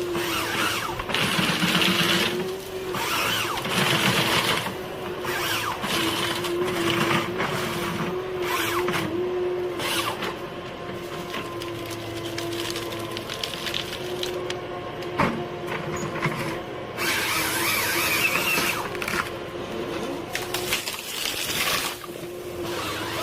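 A heavy forestry machine running with a steady, slightly wavering engine whine, interrupted by repeated bursts of rough noise and a sharp crack about fifteen seconds in.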